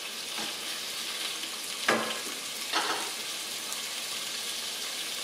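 Shrimp sizzling in hot olive oil in a frying pan as they are seared, with a couple of short knocks about two and three seconds in.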